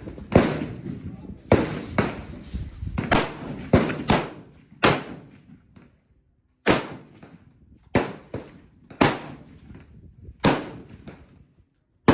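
Gunshots at an outdoor range: about ten sharp reports at uneven intervals, each trailing off in a short echo.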